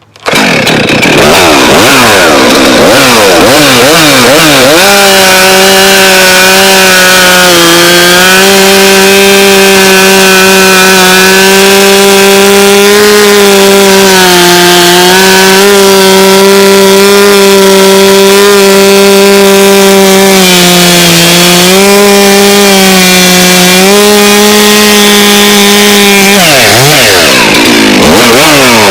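Stihl MS441 two-stroke chainsaw with a freshly sharpened chain cutting wood: blipped up and down for a few seconds, then held at full throttle through a long cut, its pitch sagging slightly a few times under load, and revved up and down again near the end.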